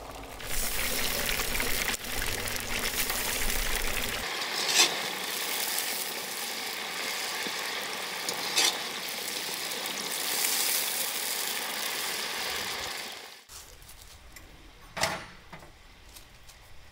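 Food sizzling as it fries, a dense steady hiss broken by a couple of sharp clicks. About thirteen seconds in it drops abruptly to a much quieter background with one more click.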